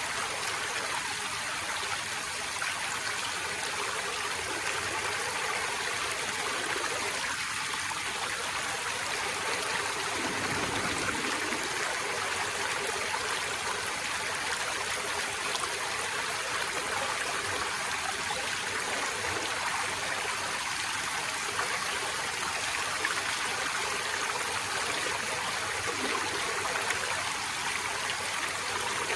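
Forest stream flowing over rocks: a steady rush of running water with a trickling, gurgling edge, holding an even level throughout.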